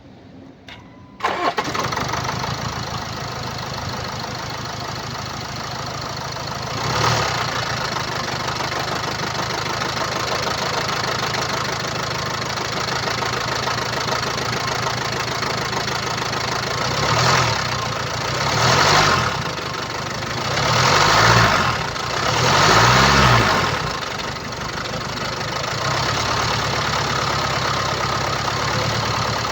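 2.0-litre four-cylinder TD4 diesel engine of a Land Rover Discovery V starting about a second in and settling to idle, with a brief rev a quarter of the way through and four short revs, each rising and falling, past the middle. The uploader puts its unusual noise down to a stretched timing chain.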